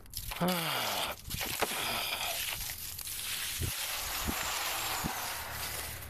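Dry branches and leaves rustling and crackling as brush is pulled and cleared, with a few dull knocks. A short tone falls in pitch about half a second in.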